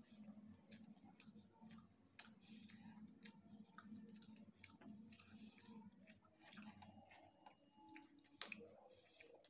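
Faint eating sounds: chewing a mouthful of fried rice with many small wet mouth clicks, and fingers gathering rice on a steel plate.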